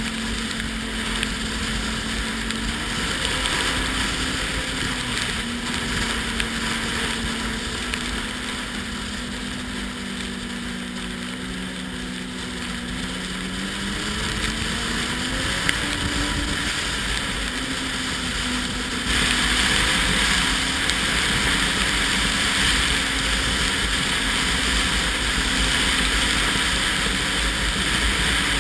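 Ski-Doo Renegade 1200 snowmobile's four-stroke engine running under way, its note dipping slightly and then rising about halfway through. Rushing wind on the microphone grows suddenly louder about two-thirds of the way in.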